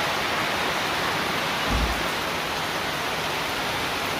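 Steady rain falling, an even dense hiss. A brief low thump sounds just before the halfway point.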